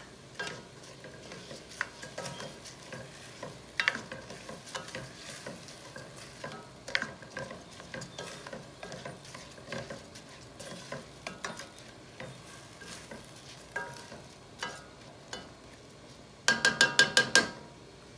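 A spoon stirring rice in a pot, scraping and clinking against the pot, over a low sizzle. Near the end, a quick run of about seven loud, sharp taps.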